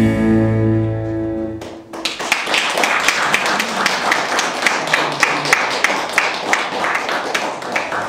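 The song's final chord rings out and fades, then about two seconds in a small audience breaks into steady applause.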